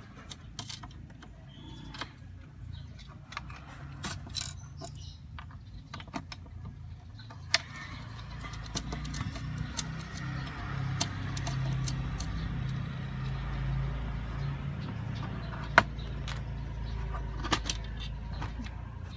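Small clicks, knocks and rattles of parts being handled as a digital prayer clock's module is unplugged and taken out, with a low rumble setting in about eight seconds in and continuing underneath.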